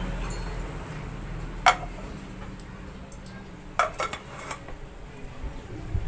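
Sharp clinks from a small stainless steel electric coffee grinder as it is handled and its clear lid is fitted: one clink about two seconds in, then a short cluster of clinks around four seconds.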